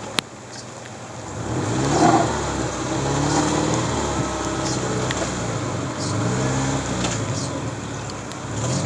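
First-generation Subaru Forester's flat-four boxer engine revving, its pitch rising and falling repeatedly. There is a single sharp knock right at the start and scattered small clicks.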